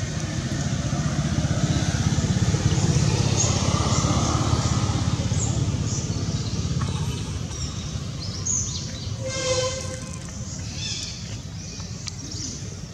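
Low engine rumble of a vehicle running near by, swelling and then fading away, with scattered bird chirps and one short high-pitched call about nine and a half seconds in.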